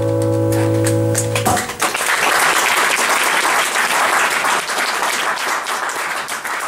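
The last chord of an acoustic and an electric guitar rings out and stops about one and a half seconds in, then the audience applauds.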